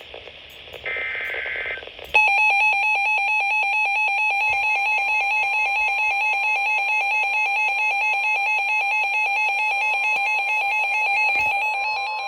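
Emergency Alert System SAME header data burst, a buzzy screech about a second long, followed about two seconds in by the loud, steady two-tone EAS attention signal. The tone marks the start of an emergency alert, here a severe thunderstorm warning.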